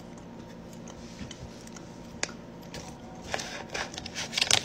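Plastic jerky bag crinkling as it is handled, in a dense run of crackles from about three seconds in, after a few faint scattered clicks.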